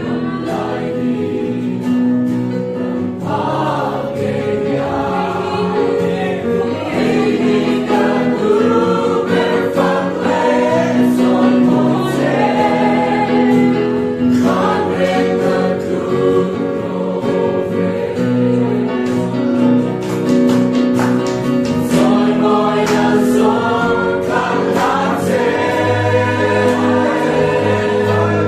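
Mizo church choir singing a gospel hymn, many voices holding long notes together, with sharp percussive beats through the singing.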